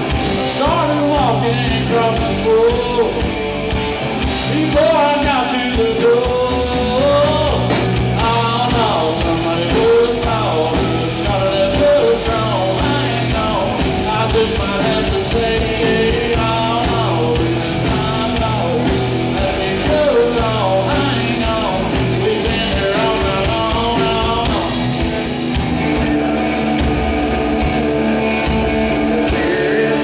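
Live rock band playing loud through the house PA, with electric guitars, bass guitar and a drum kit. A bending lead melody rides over the band for most of it and thins out near the end.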